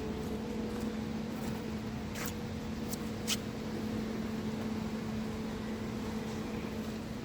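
A tram standing at the platform gives off a steady hum from its on-board equipment, a low tone with a fainter one about an octave above it. A few short, sharp clicks or hisses come about two to three seconds in.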